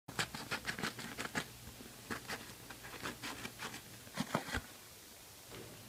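Scissors cutting through a padded mailer envelope: a fast run of short, sharp snips with crinkling paper, and a couple of duller knocks about four seconds in.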